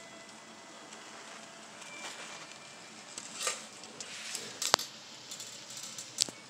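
N scale model passenger train running on the layout track: faint crackly rail noise with scattered clicks, a sharp click about two-thirds in and another near the end.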